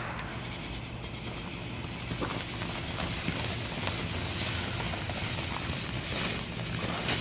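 Ground fountain firework spraying sparks: a steady hiss with scattered crackles that swells about two seconds in.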